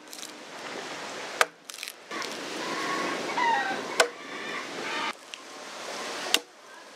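Steel blade chopping into a freshly cut log to strip its fibrous bark: three sharp strikes, about two and a half seconds apart.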